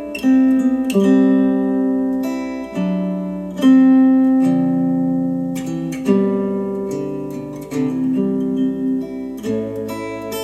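Acoustic guitar music played back through Monitor Audio Bronze 100 bookshelf speakers: chords struck every second or so and left to ring and fade.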